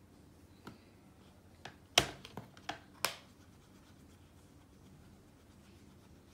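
About six light clicks and taps within a couple of seconds, the loudest about two seconds in: makeup brushes and an eyeshadow palette being handled.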